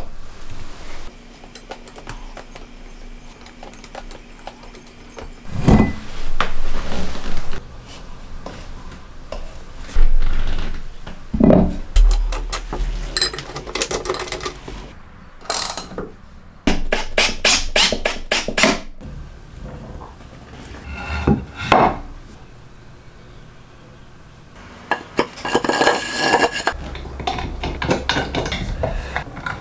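Assembly of a metal woodworking vise: its parts and hand tools clink and knock against the wooden bench in scattered, separate strikes. Midway there is a quick run of about ten even clicks, like a tool being ratcheted.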